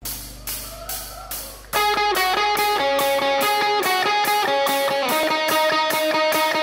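Background music: a quiet intro with a few separate struck notes, then about two seconds in a loud track with sustained notes over a fast, steady beat comes in.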